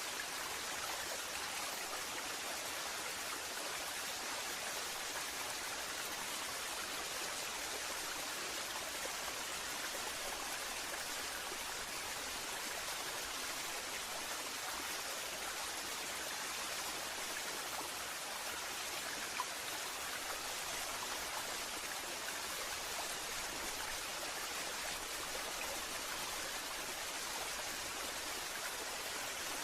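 Waterfall: water falling and splashing in a steady, even rush, with one faint click about two-thirds of the way through.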